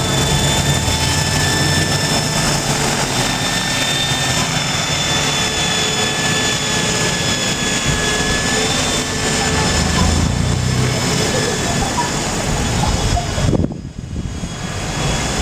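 Electric Shuttle RC model helicopter in flight: a steady high whine from its electric motor and drive over the low beat of the rotor blades. The sound dips sharply for about a second near the end.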